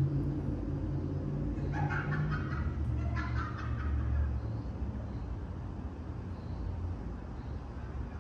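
Low steady rumble of a vehicle engine nearby, easing off after about four seconds. Two short, rapid rattling sounds come about two and three seconds in.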